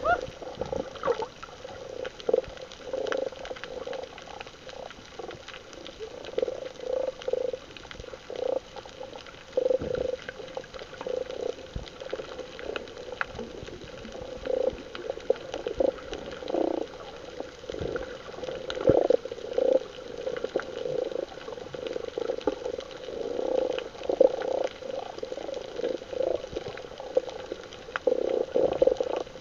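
Water splashing and gurgling in irregular muffled bursts, several every second.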